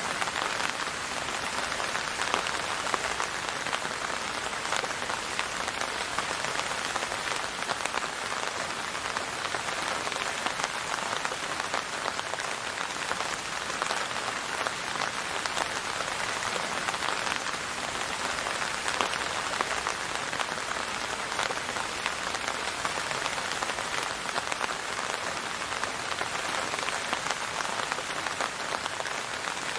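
Steady rain falling on a surface, an even hiss with many fine drop ticks, no thunder.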